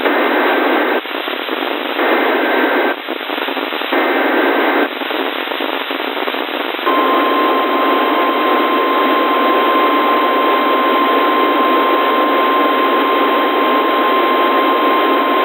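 A NOAA Weather Radio alert coming through a receiver over a steady hiss of radio static. First come three one-second bursts of the SAME digital header, a shrill two-pitch data squeal, about a second apart. Then the steady single-pitch 1050 Hz warning alarm tone sounds for about nine seconds, announcing a new warning.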